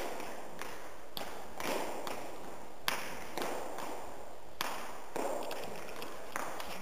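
Wushu athletes' feet stamping and landing on a padded training floor: an irregular series of thumps and slaps, each with a short echo.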